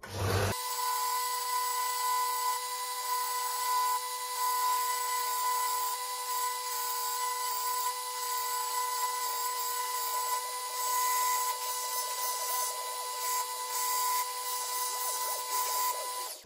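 Lumberjack BD370 bench-top belt and disc sander running, a steady motor whine, with the rough scratching of a wooden pallet block being sanded on the belt. It starts abruptly and cuts off suddenly near the end.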